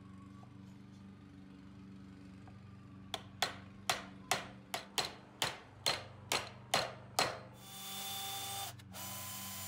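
A hammer drives nails into a thin wooden birdhouse roof panel: about ten sharp strikes, two or three a second. Near the end, a power drill runs in two short whirs about a second each.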